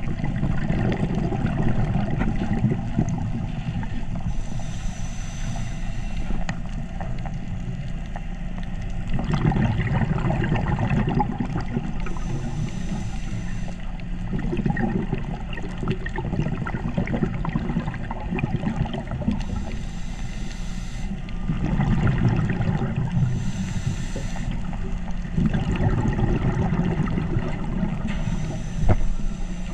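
Underwater sound of a scuba diver breathing through a regulator: a short hiss of inhaled air five times, every few seconds, with a low bubbling rumble of exhaled air between them.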